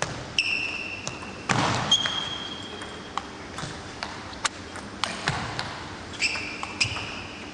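Table tennis rally: the celluloid ball clicks sharply and irregularly off the rackets and table, about a dozen times. High squeaks from the players' shoes on the court floor rise in three held stretches.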